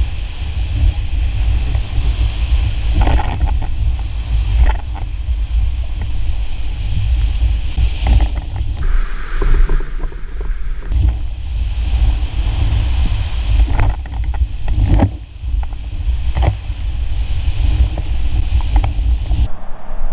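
Whitewater rapids rushing around an inflatable raft, with a heavy low rumble of wind and water buffeting the camera microphone. Several sharp splashes come through as waves break over the raft's bow.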